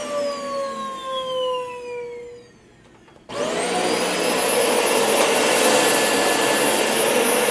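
Dyson DC40 upright vacuum cleaner's motor winding down in falling pitch after a brief start, then, about three seconds in, switched on again, rising in pitch and settling into a steady run with a high whine.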